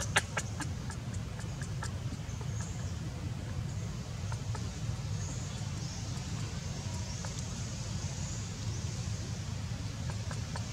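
Steady low outdoor rumble, with a few small clicks near the start and faint high chirps now and then.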